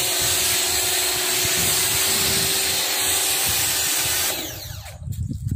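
Bosch EasyAquatak 120 pressure washer running, its foam lance spraying shampoo with a loud steady hiss over a motor hum. About four seconds in the trigger is let go and the motor stops, its whine falling away.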